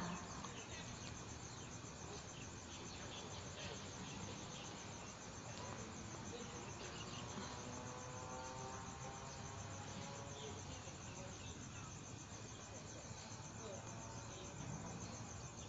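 Faint night ambience of crickets chirping in a steady, fast, high-pitched pulse.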